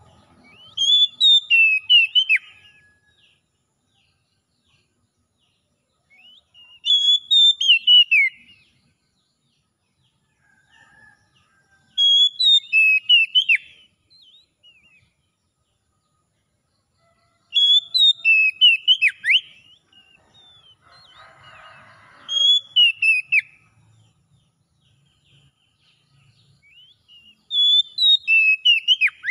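Male Oriental magpie-robin singing in short phrases of rapid whistled notes, with high, thin flourishes. The phrases come about every five seconds, six times.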